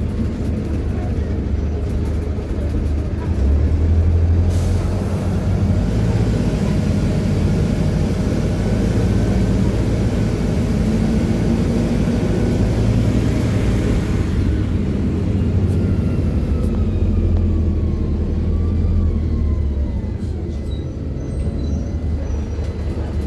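Interior sound of a PAZ 320414 city bus under way: a steady low engine drone with road and body noise. A faint whine falls in pitch in the second half as the bus eases off.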